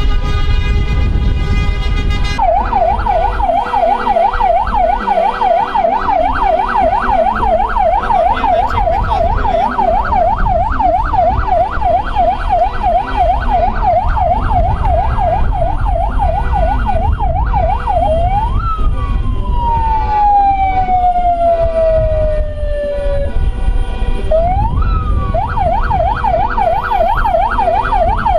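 Vehicle siren in a fast yelp, about three up-and-down sweeps a second, over a low engine and road rumble. About eighteen seconds in it rises and falls away in one long wail, then climbs again and goes back to the fast yelp near the end; the first couple of seconds are the tail of music.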